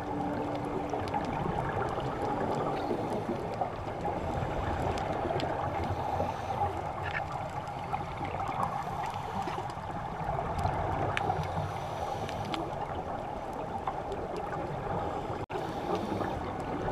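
Muffled, steady underwater rushing and gurgling picked up by a GoPro camera inside its waterproof housing, cutting out for an instant near the end.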